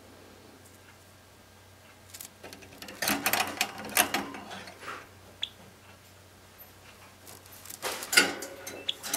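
A Java sparrow moving about in its cage, setting off two bouts of quick clicking and rattling: the first about three seconds in, the second near the end.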